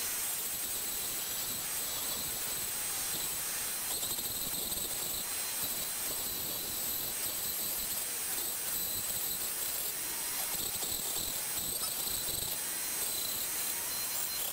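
Dremel flex-shaft rotary tool running at high speed with a small round metal burr grinding into pine: a steady high-pitched whine over a hiss.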